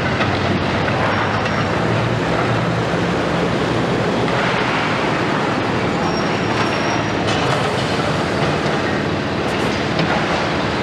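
Demolition site din: a Komatsu PC490 long-front demolition excavator working on a building while a roll-off container truck drives slowly past. The engines and the breaking material make a steady, dense noise throughout.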